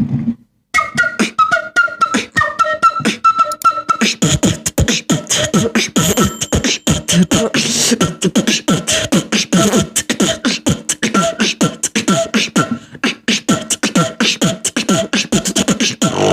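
Human beatboxing that imitates a flute: a breathy, flute-like melody sung or whistled over light mouth-percussion beats. About four seconds in, a dense, fast beatbox rhythm kicks in, and the melody carries on underneath it.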